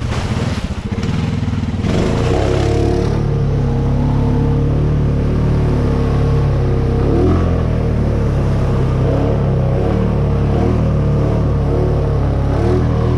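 Honda Rubicon 520 ATV's single-cylinder four-stroke engine running steadily under load as it pushes through mud holes. Water and mud splash loudly in the first few seconds.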